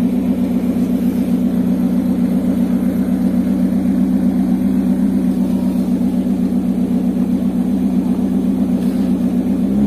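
Ferrari California's V8 engine idling steadily, then cutting off suddenly at the end.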